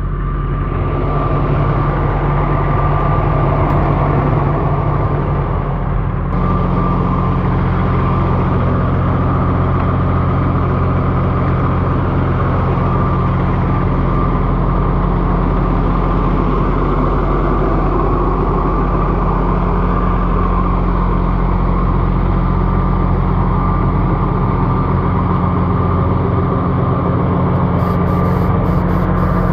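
High-mileage pickup truck engine, over 501,000 miles, idling steadily with the hood up, heard close to the engine bay. A steady whine sits above the engine's low hum, and the engine runs evenly.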